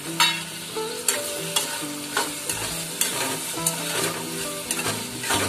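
Steel spoon stirring dried bombil (Bombay duck) into hot onion-tomato masala in a metal kadhai. Irregular clinks and scrapes of the spoon on the pan sound about once a second over a steady frying sizzle.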